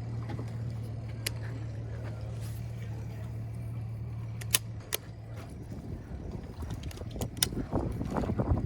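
A boat motor running with a steady low hum that stops about five and a half seconds in. After that comes uneven wind buffeting on the microphone, with a few sharp clicks.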